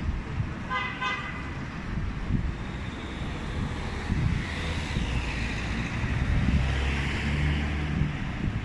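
City street traffic: engine rumble and tyre noise of passing cars, with a short horn toot about a second in. A vehicle passes close by in the second half, where it is loudest.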